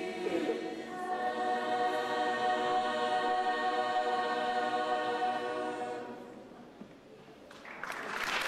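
Mixed choir singing a cappella, moving to a final chord about a second in and holding it for about five seconds before it dies away in the church's reverberation. Applause breaks out near the end.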